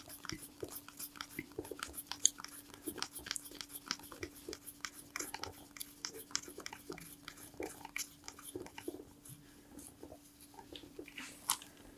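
Gloved hands winding a cord around the fuse of an airsoft hand grenade: a dense run of small clicks, crackles and rustles, with one louder click near the end. A faint steady hum runs underneath.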